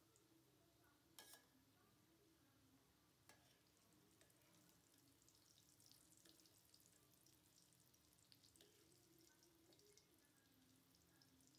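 Faint sizzling and crackling of oil as triangular pieces of egg pitha dough deep-fry in a steel karahi. A spatula stirs them and clicks against the pan, most sharply about a second in and again about three seconds in.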